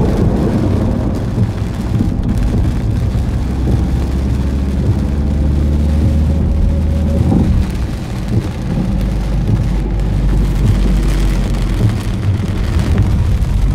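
Heavy rain falling on a car, heard from inside the moving car's cabin over a steady low rumble of engine and tyres on the wet road. There is a short knock about seven seconds in.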